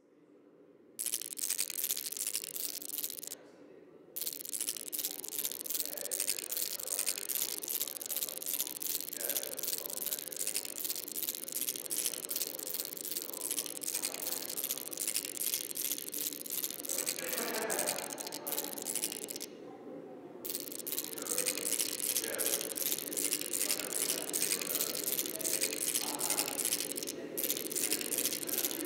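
Electronic glitch-noise soundtrack of an audio-visual installation, played over its stereo speakers: a dense, rapid crackle over a steady low drone. The crackle cuts out briefly twice, once a few seconds in and once around two-thirds of the way through.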